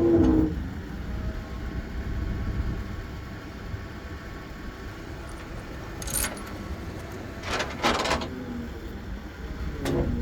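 Heavy equipment engine running steadily at low revs, with two short metallic rattles about six and eight seconds in.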